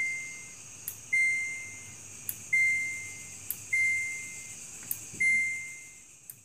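Repeating electronic beep: a single high steady tone about once every 1.3 seconds, each held most of a second, with a faint click just before each, over a steady hiss.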